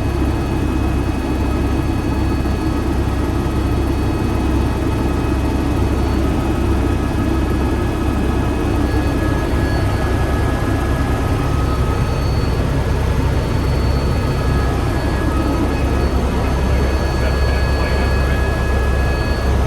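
Helicopter in flight heard from inside the cabin: a loud, steady low rumble of the rotor with several constant high-pitched turbine whines over it.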